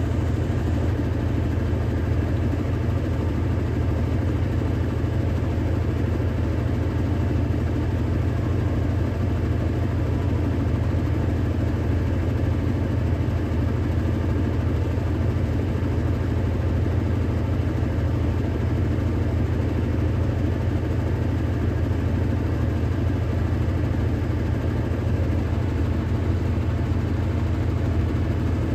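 Electrolux Ecologic 12 kg (LEC12) washing machine spinning its drum in the intermediate spin, a steady low hum with no change in speed.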